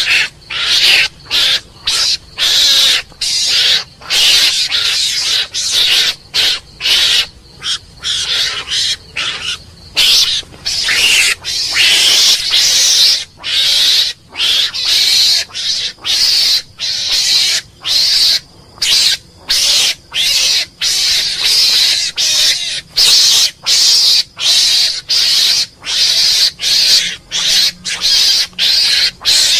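Mongoose calls: harsh, raspy, high-pitched cries repeated steadily, about once or twice a second, each under a second long with short gaps between.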